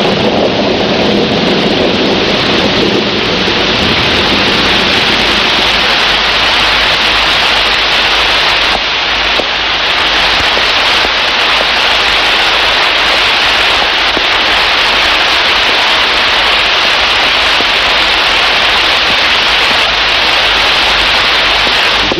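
Heavy rain pouring steadily, a loud even hiss with a low rumble beneath it. The rumble is deeper in the first few seconds.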